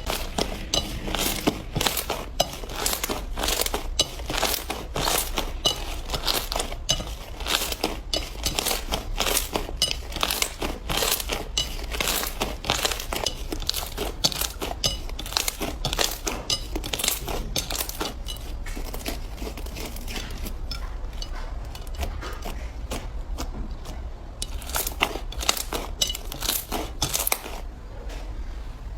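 Slime being squeezed and worked by hand, a dense run of small crackling clicks and pops. It thins out for a few seconds past the middle, then picks up again near the end.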